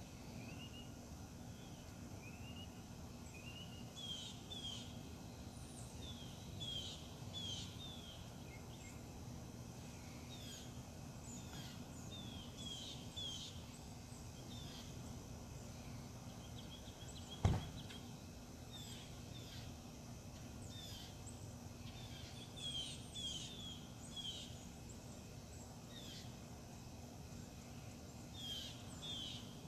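Birds chirping repeatedly with short, falling high notes, often in quick pairs and runs, over a steady low hum and rumble. A single sharp knock sounds about halfway through, louder than anything else.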